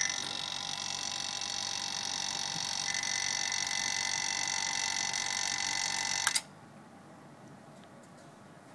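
Electric vacuum pump running steadily as it pumps the air out of a bell jar. It is switched off with a click about six seconds in, and its sound stops abruptly.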